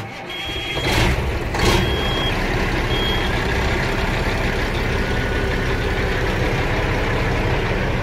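A 2004 Kenworth W900L's diesel engine, heard from inside the cab, starting up and settling into a steady idle. A high warning beep sounds on and off during the first three seconds.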